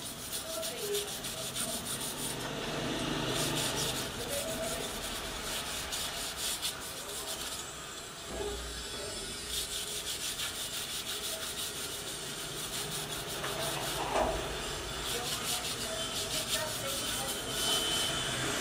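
Rapid back-and-forth rubbing strokes of hand sanding on the plastic case of a car battery, pausing briefly about halfway through.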